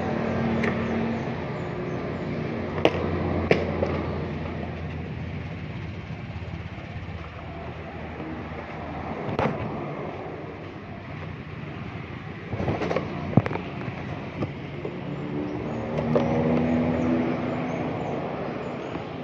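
Motorcycle engine running on the move, under a steady rush of road and wind noise. It comes up again about three-quarters of the way through, and a few sharp knocks are heard, like jolts over bumps.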